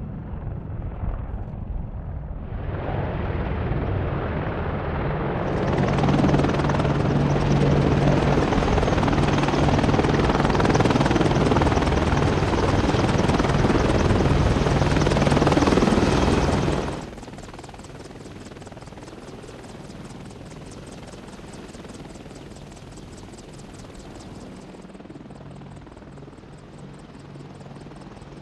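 Boeing AH-64 Apache attack helicopters' rotors and twin turboshaft engines running. The sound is loud and rushing through most of the first two-thirds, then drops abruptly to a quieter, steady rotor chop with an even beat.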